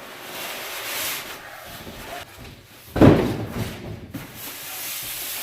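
Cardboard packaging scraping and rustling as a box is unpacked, with a heavy thump about three seconds in, the loudest sound.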